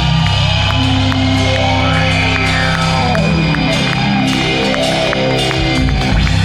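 Live rock band playing an instrumental passage through a festival PA, with electric guitars and bass holding sustained notes, some sliding up and down in pitch, over a light ticking beat about five times a second.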